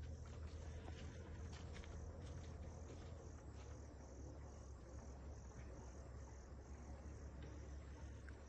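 Insects chirping in an even, high-pitched rhythm of about three pulses a second, faint, over a steady low rumble.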